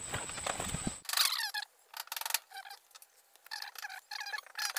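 About a second of rustling and crackling as wires are handled, then a chicken clucking in a series of short, broken calls.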